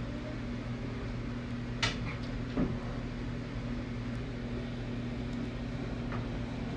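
A steady mechanical hum, like a running household appliance, with two light clicks about two and two-and-a-half seconds in.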